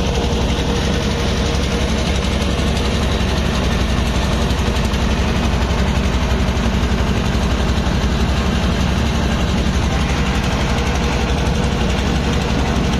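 Boat engine running steadily, close and loud, with a constant hiss over its low drone.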